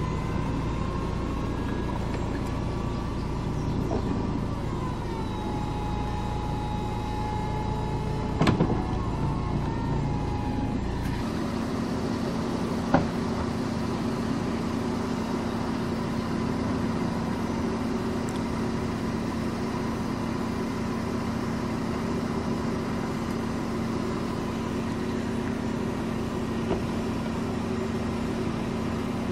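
Volkswagen Eos's power-folding hardtop roof mechanism running: a steady motor whine whose pitch climbs slowly and then drops, with a clunk about eight seconds in. About eleven seconds in the sound changes abruptly to a lower steady hum, with a sharp click a couple of seconds later.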